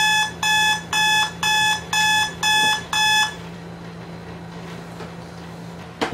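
Electronic alarm beeping, about two beeps a second, stopping a little after three seconds in. A steady low hum follows, with a short rustle of a blanket at the very end.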